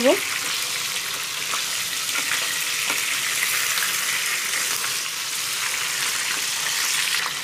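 Two whole pabda catfish sizzling steadily as they fry in well-heated mustard oil in a kadai, with a few light ticks of a metal spatula against the pan as the fish are turned.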